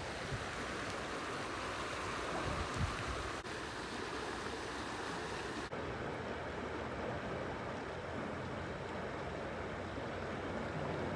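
Steady rush of water pouring through a concrete sluice gate. About six seconds in the sound cuts to a duller, softer water noise.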